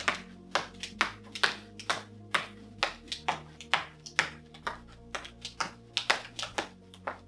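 A jump rope skipping steadily, a sharp slap against the floor about twice a second with each turn, during one-legged jumping. Quiet background music with held chords plays underneath.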